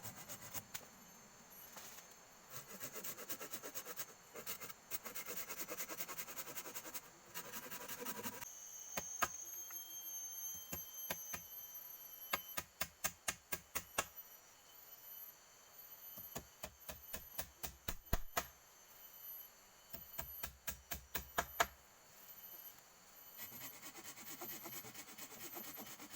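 A series of sharp knocks and taps, coming in quick runs of several a second, over a noisy background.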